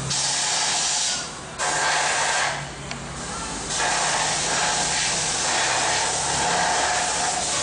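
Compressed-air paint spray gun hissing as it sprays paint onto a steel vehicle chassis frame. The spray stops briefly twice, sharply about a second in and more gradually around three seconds in, then runs on steadily.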